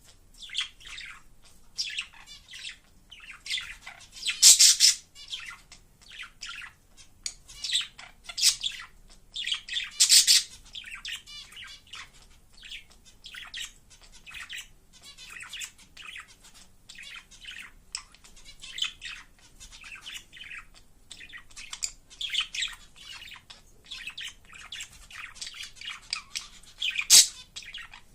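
Budgerigar warbling its chattering song: a continuous run of quick high chirps and twitters, with a few louder sharp calls, around 4, 10 and 27 seconds in.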